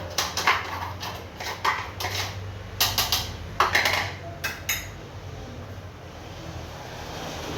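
Kitchen utensils and containers clattering: a run of sharp knocks and clinks for about five seconds, then only a faint low hum.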